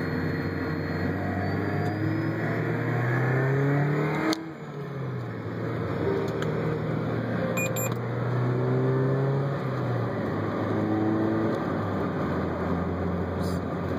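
Car engine pulling through the gears, heard from inside the cabin, with a whine that rises in pitch again and again as the revs climb and drops back at a gear change about four seconds in. The driver puts the whine down to alternator whine coming through the Dual XHD7714 head unit's speakers.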